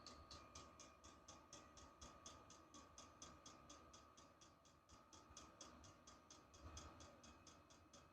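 Faint, rapid, even ticking of a Chinese diesel heater's fuel dosing pump, about four or five ticks a second, over a thin steady whine from its blower fan, as the heater runs through its warm-up.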